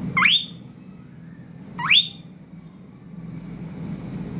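Caged green parakeet giving two short, sharp upward-sweeping calls about a second and a half apart, over a low steady hum.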